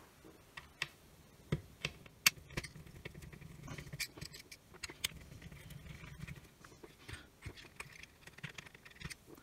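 Small screwdriver taking tiny screws out of a multimeter's circuit board: light, scattered clicks and scrapes of the driver tip and screws, with parts handled on a silicone mat.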